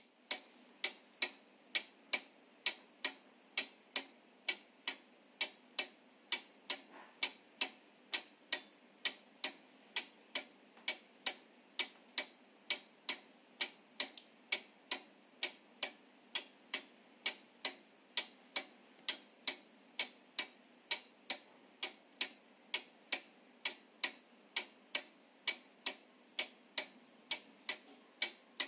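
Clock ticking steadily, about two sharp ticks a second, the ticks alternating slightly in loudness like a tick-tock.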